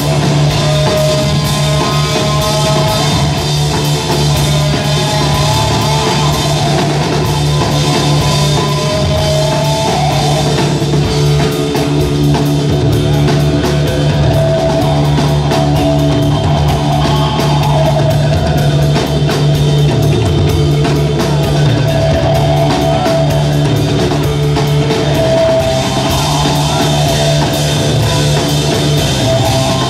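Live instrumental rock played by a guitar, bass and drum trio: a steady low bass line under wavering, sustained electric guitar lines and continuous drumming with busy cymbals.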